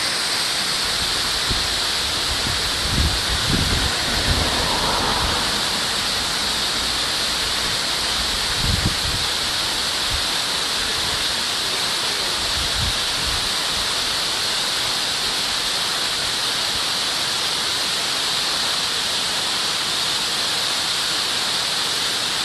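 Waterfall rushing in a steady, even roar of falling water, with a few brief low thumps of wind on the microphone in the first half.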